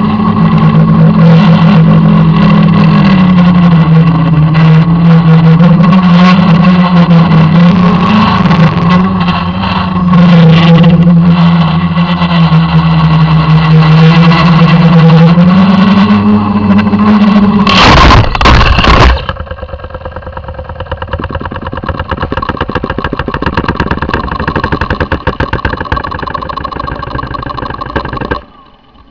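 IFLY-4S quadcopter's electric motors and propellers humming loudly, the pitch wavering with throttle, heard through the drone's onboard camera. About 18 seconds in, a burst of loud crashing impacts as it hits the ground, then a quieter, fast rattling buzz that cuts off shortly before the end.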